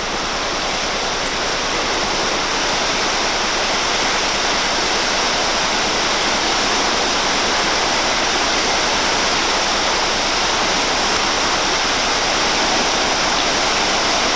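Pejivalle River's rapids rushing in a loud, steady, unbroken roar of white water.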